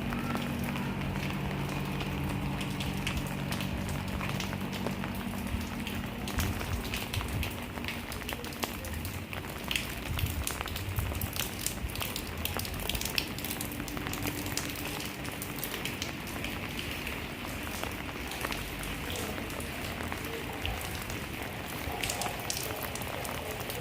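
Steady rain falling, with many close, sharp raindrop taps over a constant hiss. A low steady hum runs under it for the first several seconds, then fades.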